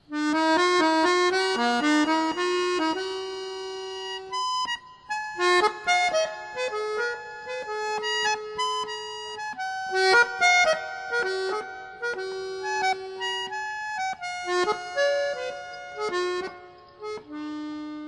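Background music: a waltz melody played on a free-reed instrument. It starts suddenly at the opening.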